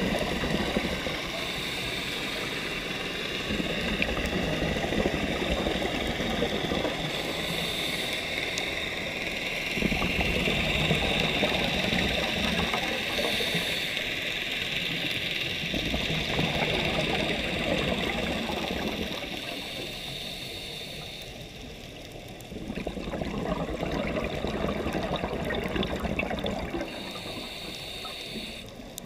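Scuba diver's regulator breathing underwater: bursts of exhaled bubbles rushing past roughly every six seconds, with quieter inhale gaps between, over a steady high hiss.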